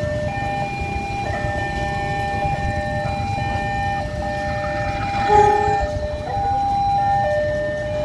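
Railway level-crossing warning alarm sounding: an electronic signal switching back and forth between a lower and a higher tone about once a second, the sign that the crossing is closed for a train movement. A brief louder sound breaks in about five seconds in.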